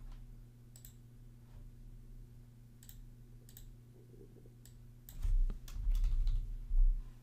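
A few isolated computer mouse clicks, then a quick burst of keyboard typing near the end as a feature name is typed in. A steady low electrical hum runs underneath.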